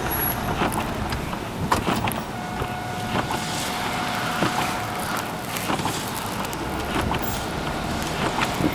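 Street traffic on a snow-covered city street: cars running and passing over a steady rumble, with scattered clicks. A steady tone sounds from about two and a half seconds in and lasts a couple of seconds.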